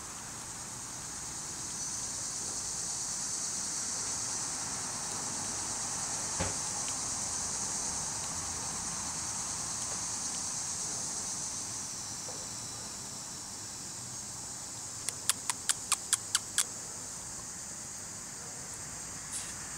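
Steady high-pitched insect chorus. A quick run of about eight sharp clicks comes roughly three-quarters of the way through.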